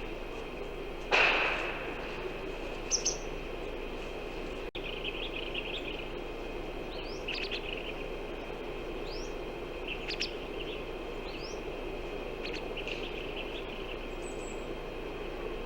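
Wild birds chirping outdoors, scattered short calls and quick rising notes over a steady background hiss, with one short loud burst about a second in.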